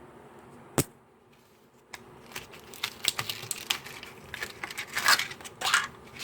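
Toy packaging being crinkled and torn open: a sharp click a little under a second in, then about four seconds of irregular crackling and tearing.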